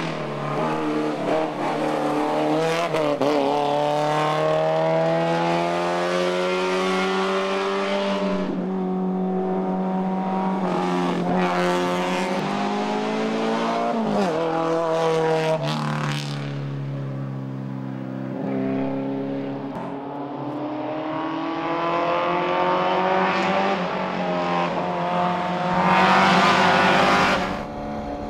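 Isuzu Gemini rally car's engine driven hard, its note climbing steadily with the revs and dropping back several times at gear changes or lifts off the throttle. It is loudest in a burst of revs near the end.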